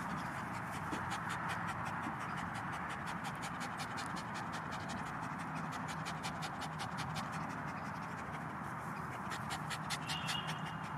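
Sealyham terrier panting in a quick, even rhythm, out of breath from a retrieve.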